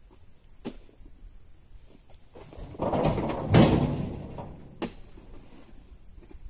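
A heavy knock with a scraping rustle about three seconds in, lasting a second or so, with a few light clicks before and after.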